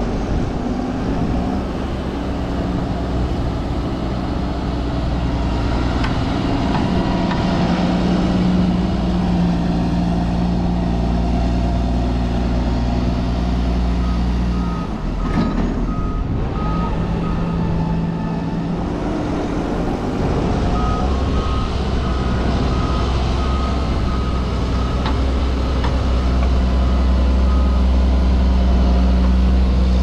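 Fendt tractor's diesel engine running under load, its pitch rising and falling as it pushes and packs corn silage on the pile. A reversing alarm beeps steadily in two spells in the second half.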